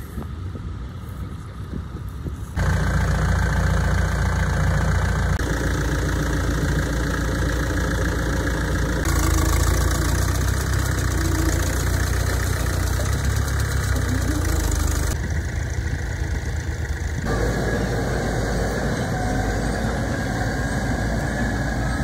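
Tractor engines running in a series of short clips, after a quieter first couple of seconds. The engine note changes abruptly at each cut.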